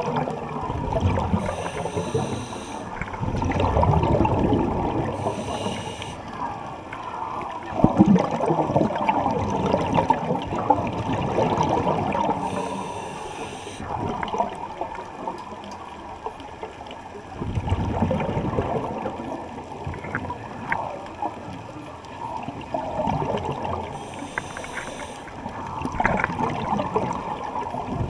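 Muffled underwater noise through a camera's housing: water sloshing and gurgling, with a few short hissing spells of bubbles.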